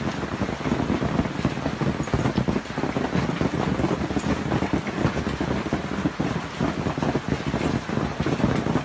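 Storm-force wind gusting against the microphone: dense, continuous noise that swells and dips rapidly, with no letup.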